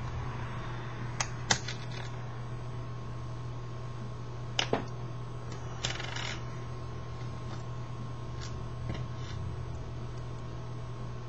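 Small plastic clicks and taps as a garage gate remote's circuit board and plastic case are handled and fitted back together: a handful of sharp clicks, a few seconds apart, over a steady low hum.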